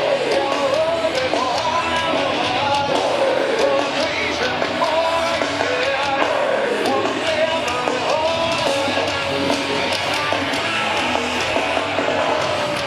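Live rock music: an amplified band with electric guitars and a singer, played loud and continuous.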